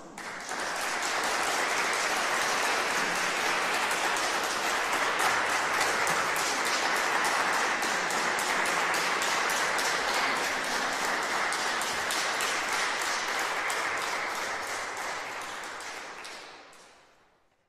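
Audience applauding steadily, then fading away over the last couple of seconds.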